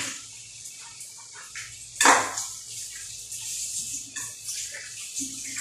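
Washing up at a kitchen sink: water running and splashing with small knocks, and one louder splash about two seconds in.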